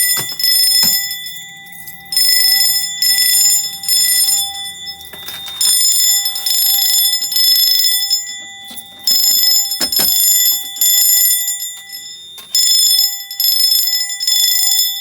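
Fire alarm bells ringing in repeated bursts with short gaps between them: the panel is sounding them in the temporal code-3 pattern.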